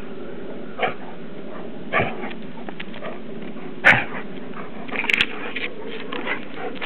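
A Standard Poodle and a Newfoundland at rough play, giving a few short, sharp yelps and barks, about four in all, the loudest near the middle, over a steady background hiss.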